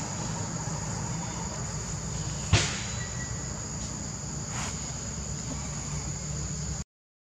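Steady, high-pitched insect drone, with a single sharp knock about two and a half seconds in and a fainter one about two seconds later.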